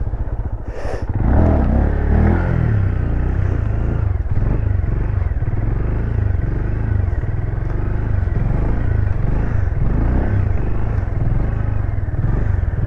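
Motorcycle engine revving up and easing off over and over as it is ridden through wheelie tricks, over a steady low rumble.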